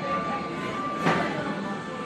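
Music with a steady high held note, and one short sharp click about a second in.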